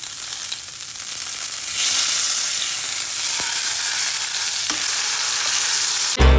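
Block of beef searing in oil in a hot nonstick frying pan: a steady sizzle that gets louder about two seconds in. Music starts right at the end.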